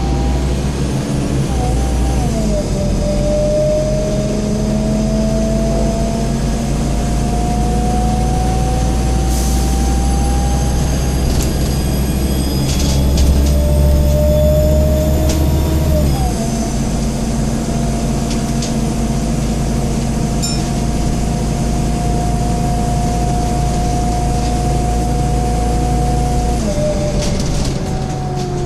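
Scania N230UD double-decker bus heard from the upper deck: its 9-litre five-cylinder diesel and driveline pull with a whine that rises steadily in pitch as the bus gathers speed. The whine drops sharply at a gear change about halfway through, then climbs slowly again and falls away near the end as the bus eases off. There are a few light rattles around the middle.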